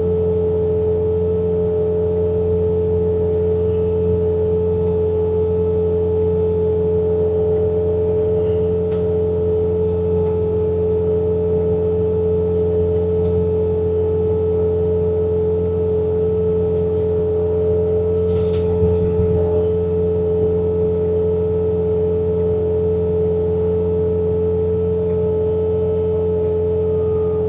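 Bobcat T66 compact track loader running its diesel engine and snowblower attachment: a steady low drone under a constant high whine, with a few brief clicks.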